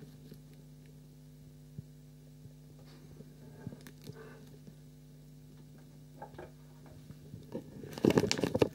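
Steady low hum with a few faint clicks, then about eight seconds in a loud burst of rustling and knocking from a handheld camera being handled as it is moved.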